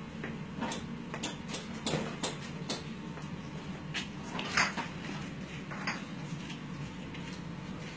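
Scattered light clicks and knocks of plastic spawn bottles and bags being handled during mushroom bag inoculation, over a steady low hum.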